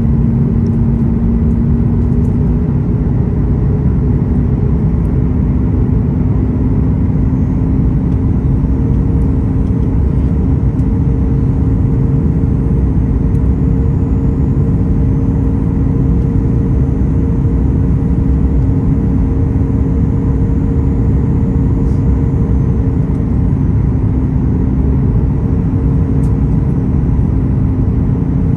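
Cabin noise of a Boeing 737 MAX 8 heard beside its CFM LEAP-1B engine on approach to landing: a steady, loud low rumble of engine and airflow. Over it runs a steady engine hum that rises slightly in pitch about two seconds in, then holds.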